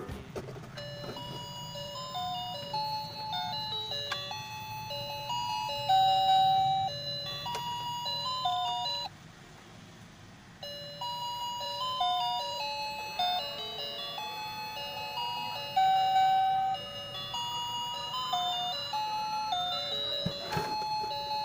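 Battery-powered toy kitchen stove playing a simple electronic tune of plain single notes from its sound chip, set off by pressing the stove knob. The tune stops about nine seconds in and starts over a second and a half later.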